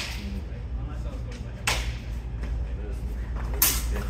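Steel sparring swords clashing: three sharp metallic clashes about two seconds apart, each ringing briefly, the last the loudest.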